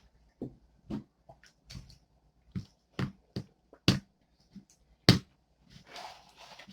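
Homemade glue slime being mixed, with sharp sticky clicks and pops about every half second and a brief squelchy rustle near the end.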